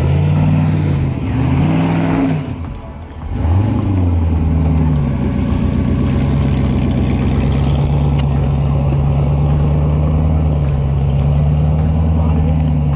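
Off-road buggy engine revving up and falling back three times, then held at a steady pitch under load as the buggy climbs over rough ground.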